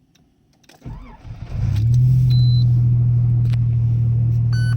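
Nissan Z31 Fairlady Z 300ZX's VG30ET turbo V6 cranked about a second in and catching almost at once, then settling into a steady idle. This is a start-up check after the engine computer was repaired. A short high beep sounds just after it catches, and a few electronic beeps come near the end.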